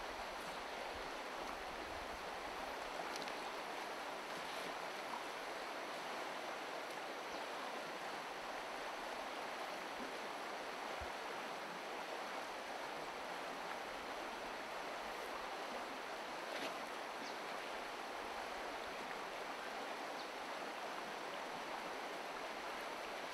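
A shallow river running steadily over stones and a small rapid: an even rush of water, with a few faint clicks.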